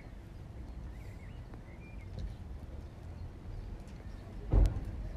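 A few faint bird chirps over a low steady rumble, then one sharp thump about four and a half seconds in, the loudest sound.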